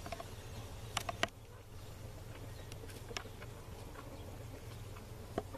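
Quiet outdoor background around a foraging chicken flock: a steady low hum, with a few sharp clicks or taps, two close together about a second in and one near the end.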